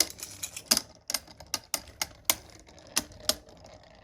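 Beyblade spinning tops clashing in a plastic Hypersphere Beystadium: a dozen or so sharp, irregular clacks as the tops strike each other and the stadium walls.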